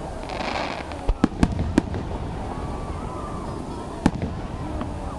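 Aerial fireworks going off: a burst of crackling just after the start, then three sharp bangs in quick succession about a second in, and another bang near the end.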